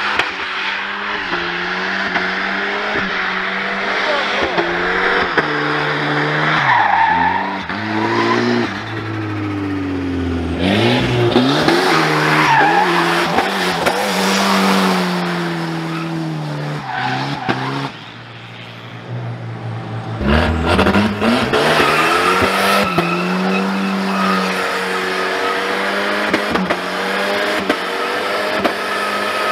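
Volvo 940 engine revving, its pitch rising and falling over and over as the car drifts sideways on a snowy road with its rear wheels spinning. The revs drop away for a couple of seconds past the middle, then climb again.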